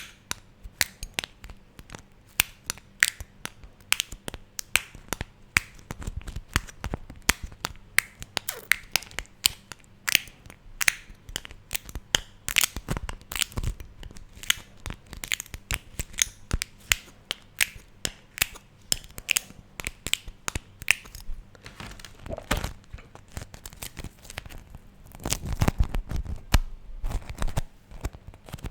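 Beeswax food wrap handled close to the microphone, its sticky wax coating crackling and peeling in quick, irregular snaps. Near the end, heavier handling adds a stretch of low thumps.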